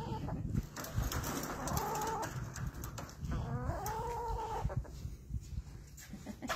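Domestic hen calling: three drawn-out, arching calls, the last and longest lasting about a second and a half.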